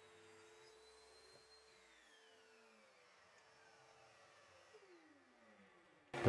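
Table saw motor and blade coasting down after being switched off from a rip cut: a faint steady whine that starts falling in pitch about two seconds in and fades away.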